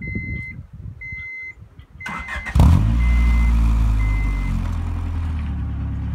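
A 1989 Acura Integra's four-cylinder engine is cranked by the starter for about half a second, catches about two and a half seconds in with a loud burst, then settles into a steady idle, pretty quiet through the newly fitted carbon-fibre muffler. A dashboard warning chime beeps about once a second through the first four or five seconds.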